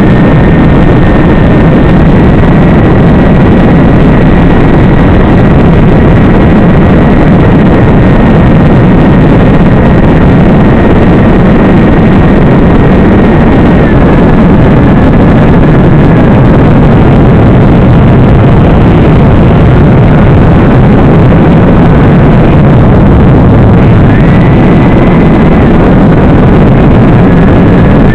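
Onboard audio from a small FPV aircraft in flight: a loud, steady rush of motor, propeller and wind noise, with a thin high whine that steps up and down in pitch a few times.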